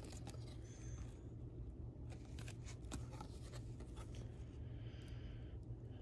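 Trading cards being flipped one at a time through a hand-held stack: faint scattered clicks and light scraping of card stock, over a steady low hum.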